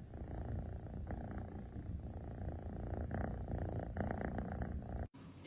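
Domestic cat purring steadily in swells about a second long, rising and easing with its breathing, while it lies curled up asleep; the purring cuts off near the end.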